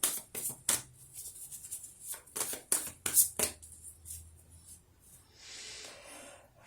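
A deck of oracle cards being shuffled by hand: a quick run of crisp card clicks, then a softer rustle near the end.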